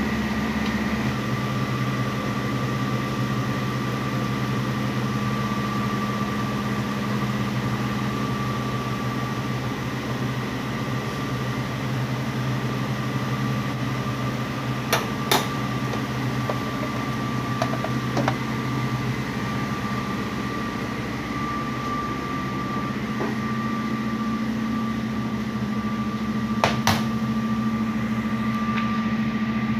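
A steady mechanical hum that holds one pitch, broken by a few sharp clicks: a close pair about halfway through, a single click a few seconds later and another pair near the end.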